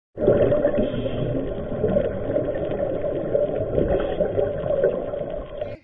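Muffled underwater noise picked up by the camera mic during a dive: a steady rush of water with no clear rhythm, cutting off suddenly at the end.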